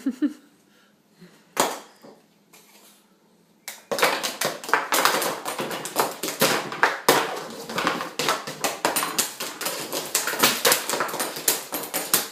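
A loud, rapid clattering and rattling racket of many quick knocks, starting suddenly about four seconds in, after a single knock.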